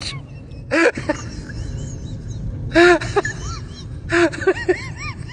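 A high-pitched voice giving short cries that rise and fall in pitch, in three bursts about a second and a half apart, over a low steady hum.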